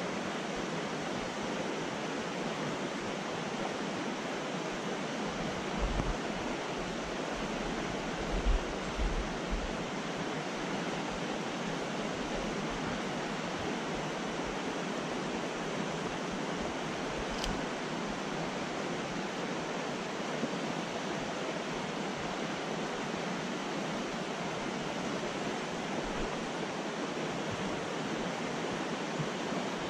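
A fast mountain trout creek rushing steadily over shallow riffles. A few low thumps come about six and nine seconds in.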